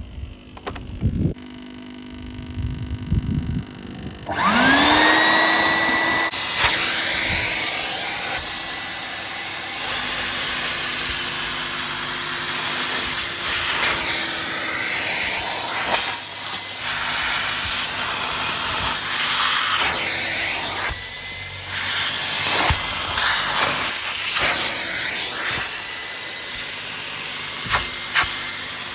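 Numatic Henry Wash and Revive wet vacuum starting up about four seconds in with a rising whine, then running steadily. Its suction hiss swells and dips as the small fishtail nozzle sprays and extracts cleaning solution. A few low knocks come before the motor starts.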